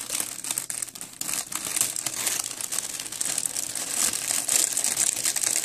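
Crumpled white tissue paper being gently uncrumpled by hand: continuous crinkling made of many small crackles.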